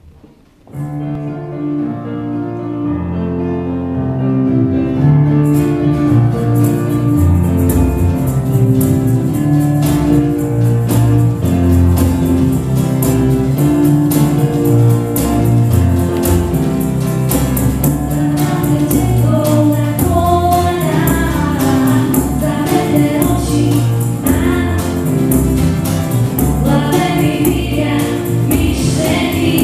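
A church choir's band starts a song: keyboard and guitars come in about a second in, a tambourine joins with a steady shake around six seconds in, and singing voices join over the accompaniment later on.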